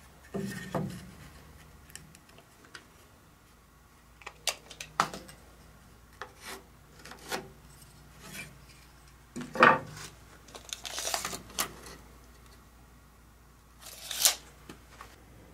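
Wooden boards being handled and shifted by hand: light rubs and taps with scattered knocks, the loudest about ten seconds in.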